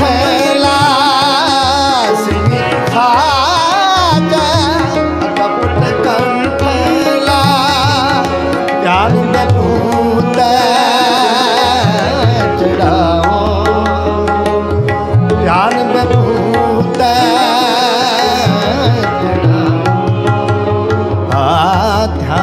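Sikh shabad kirtan music: a singer's fast wavering melodic runs without clear words over steady held harmonium tones, with tabla playing throughout.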